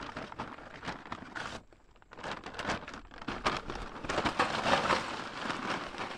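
Paper charcoal sack rustling and crinkling, then lumps of charcoal clattering and tumbling into a small grill as the sack is tipped out, busiest and loudest about four to five seconds in.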